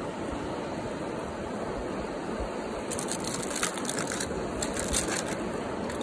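A fast-flowing river rushes steadily. From about three seconds in, short crackling, crunching sounds come and go over it.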